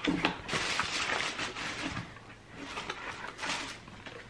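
Rustling and small clicks of packaging and small objects being handled, in two stretches with a short lull between.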